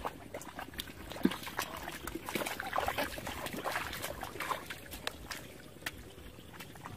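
Feet and hands sloshing and squelching through shallow muddy water, with irregular small splashes and drips as people wade and grope in the mud for fish.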